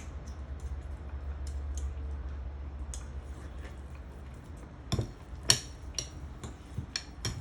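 Small kitchen utensils clicking and tapping against a bowl or dish, with a few louder knocks near the end, over a low steady hum that fades about halfway through.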